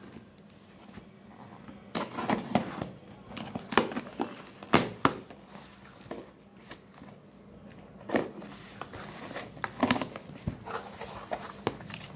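A cardboard shipping box being opened by hand: irregular rustling, crinkling and crackling of cardboard and paper as the flaps are torn and pulled back and a paper invoice is handled.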